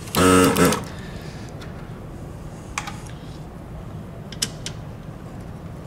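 A short, loud buzz lasting under a second just at the start, then a few light clicks of the plastic trigger handle being handled and fitted against the seat's frame.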